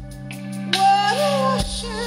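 Rock band playing live with a woman singing. A sung line comes in just under a second in, rising in pitch, over a sustained low note that cuts off with a drum hit near the end.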